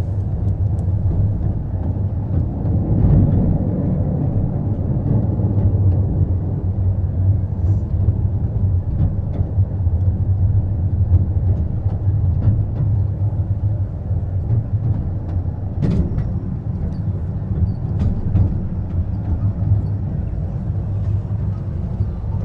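Park ride-on train running, heard from aboard: a steady low rumble of the train moving along its track, with a few light clicks and one sharper knock about two-thirds of the way through.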